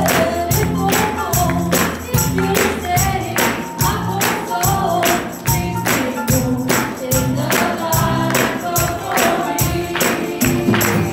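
Gospel song with a woman singing into a microphone over amplified accompaniment with a bass line and a steady percussion beat.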